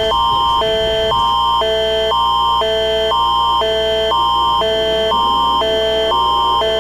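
Canadian Alerting Attention Signal, the Alert Ready emergency tone: two chords of pure tones alternate every half second, a high tone held steady under both. It announces an emergency alert broadcast.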